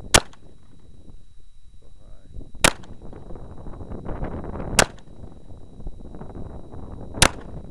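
Glock 21 .45 ACP pistol fired four times, single shots spaced about two to two and a half seconds apart.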